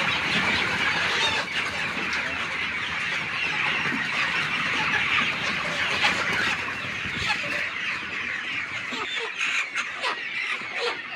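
A large flock of kampung chickens clucking and calling together in a dense, continuous chorus. About halfway through, a chicken is grabbed by hand and flaps its wings.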